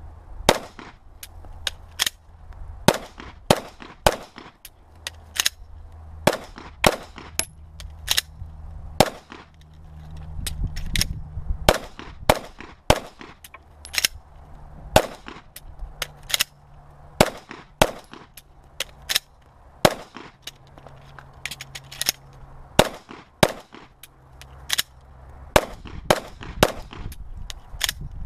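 Semi-automatic pistol shots fired in quick, irregular runs. The runs are broken by short pauses where the shooter clears a dummy-round malfunction with a tap and rack, or changes magazines when one runs dry.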